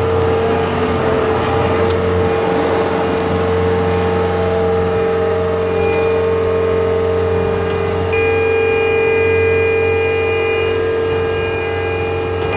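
Tracked skid loader's diesel engine running steadily as the machine drives up and tips its bucket into a dump trailer. A higher whine joins in about eight seconds in.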